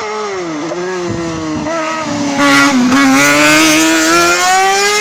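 A car cross racing buggy's engine on a hillclimb bend: it drops in pitch twice as the car slows and changes down into the corner, is loudest as it passes about halfway through, then rises steadily as the car accelerates out of the bend.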